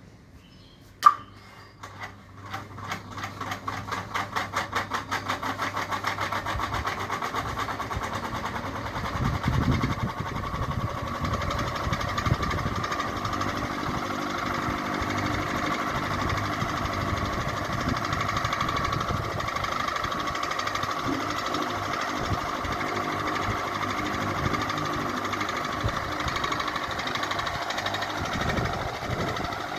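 Ceiling fan switched on with a sharp click about a second in. A rhythmic beat quickens over the next few seconds as the fan speeds up, then it runs steadily with a whirring hum.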